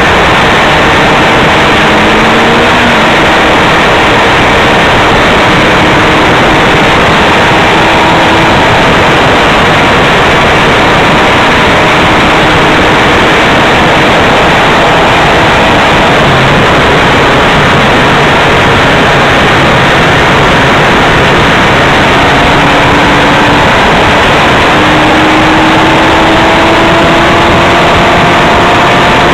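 Loud, steady wind rush on a moving motorcycle's onboard camera microphone, with the bike's engine faintly audible underneath, its pitch slowly rising and falling with the throttle.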